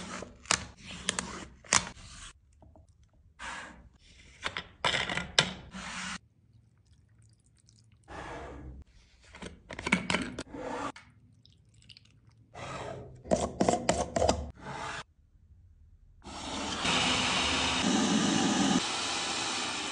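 Close, crisp handling sounds in short separate bursts: a foil lid crinkling as it is peeled off a dessert cup, then a plastic bottle cap being unscrewed. About three seconds from the end an electric blender runs steadily, blending cantaloupe, ice cream and milk into a milkshake.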